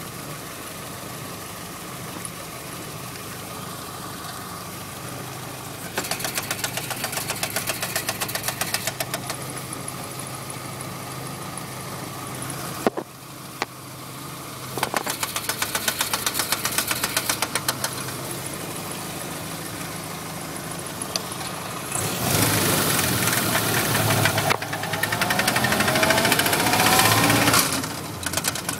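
Willys MB's four-cylinder flathead engine running, with a fast rhythmic knock from the drivetrain that comes and goes in stretches. The knock stops when the clutch is pressed and is worst in second gear. The engine runs louder and rises in pitch near the end.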